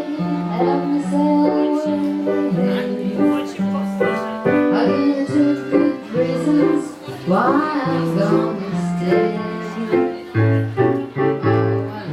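Music played live: a melody of held notes over lower sustained notes, with a cluster of sliding notes about seven and a half seconds in.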